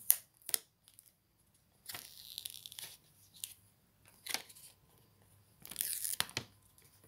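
Crinkling and tearing of the clear plastic wrapping on a new smartphone as it is taken out of its box and unwrapped. The sound comes in two rustling stretches, with a few sharp clicks of handling near the start and in between.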